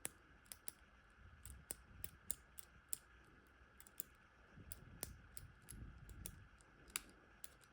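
Faint, irregular clicks of a combination padlock's number wheels being turned notch by notch, about two a second, while the shackle is held under upward tension to feel for the gates.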